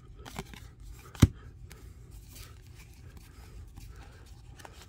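Trading cards being flipped and slid one at a time in the hands: soft scraping of card stock with light ticks, and one sharp click a little over a second in.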